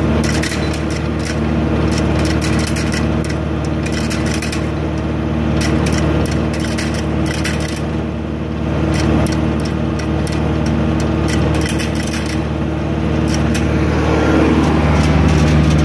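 Farm tractor engine running steadily under a fast, irregular clatter of rattles. About fourteen seconds in, the engine note changes and grows a little louder.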